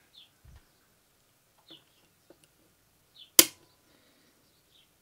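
A single sharp metallic click about three and a half seconds in, as a home-made triangular steel screwdriver bit is set into a security screw in a soup maker's plastic base. Otherwise near quiet, with a soft knock near the start and a few faint high chirps.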